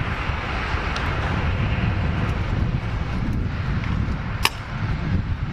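Steady rumble of wind buffeting the microphone, with one sharp click about four and a half seconds in.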